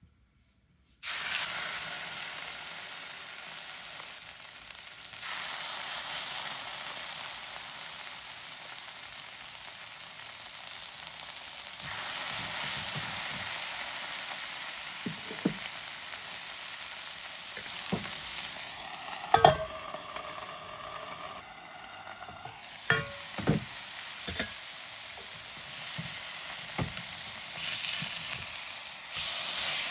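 Marinated chicken breast sticks frying in a pan with a steady sizzle that starts about a second in. Several sharp knocks and clinks come in the second half, one of them ringing briefly.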